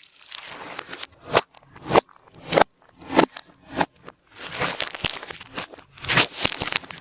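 Slime being mixed by hand, with sticky crackling squishes. About every half second at first, then denser and busier over the last few seconds.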